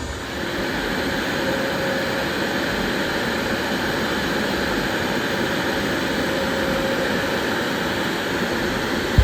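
CNC router spindle running steadily while a 45° V-bit carves into plywood: a constant, even machine noise with a faint hum that comes and goes.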